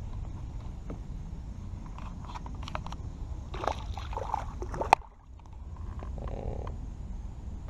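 A hooked bass thrashing and splashing at the surface beside a kayak, loudest about three and a half to four and a half seconds in, amid scrapes and knocks of fishing gear against the hull. A single sharp click comes just before the five-second mark.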